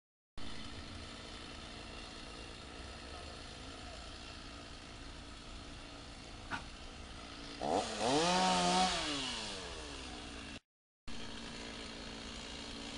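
Chainsaw running at a steady low level, then revved once for about two seconds past the middle, its pitch rising and falling back.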